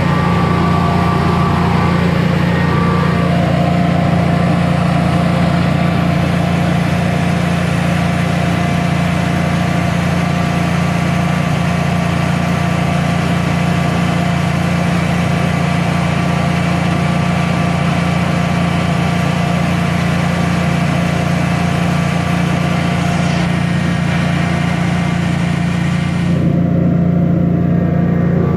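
Generac Guardian 16 kW standby generator's engine running at a steady governed speed under load from a bank of electric heaters during a load test. The high hiss drops away near the end.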